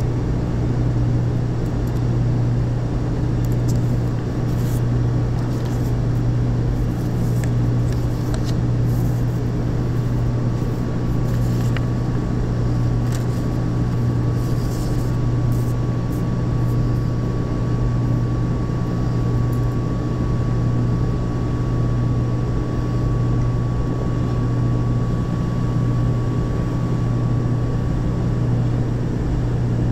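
Steady, loud low hum of running industrial machinery, with a few faint clicks and knocks from handling the metal oil filter housing.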